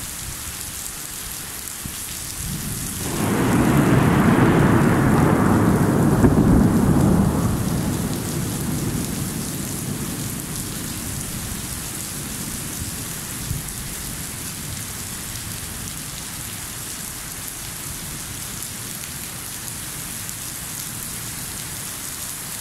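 Heavy rain falling steadily, with a loud peal of thunder that builds about three seconds in, rumbles for several seconds and slowly dies away.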